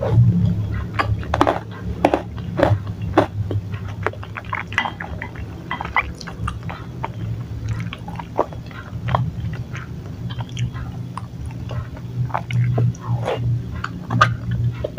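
Close-up chewing of chewy tapioca-starch balls (bakso aci): irregular wet mouth clicks and smacks, several a second.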